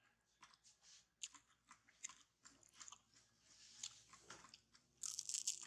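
Baby monkey chewing and smacking its lips as it eats, a quiet run of short wet clicks close to the microphone. About five seconds in comes a brief, louder rustle.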